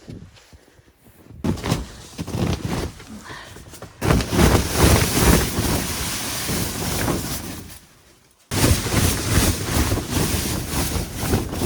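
Wind buffeting the microphone outdoors: a loud, rough rumble that comes in stretches, starting and stopping abruptly about a second and a half in, at about four seconds, and again after a brief lull at about eight and a half seconds.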